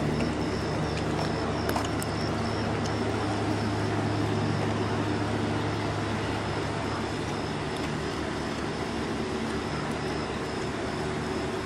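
Steady machine drone with a low hum and a faint high whine.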